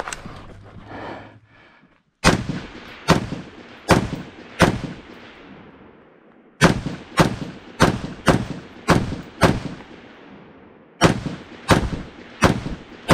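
Semi-automatic rifle fire in strings: about two seconds in, four shots roughly a second apart, then after a pause a quicker string of about seven, and a few more near the end. Each shot is sharp and followed by a short echo.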